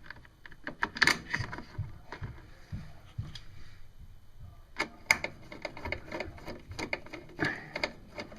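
Irregular clicks and knocks of a plastic cover and its bolts being handled and fitted back into place by hand.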